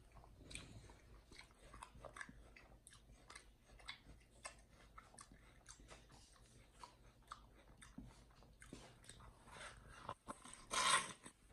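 Chimpanzee eating a mini watermelon: wet chewing and lip-smacking, many small clicks. Near the end comes a louder, longer crunch as it bites into the melon.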